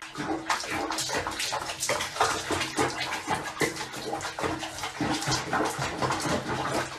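Bathwater splashing and sloshing in a small basin of sudsy water as a cat is bathed in it, in many short, irregular splashes.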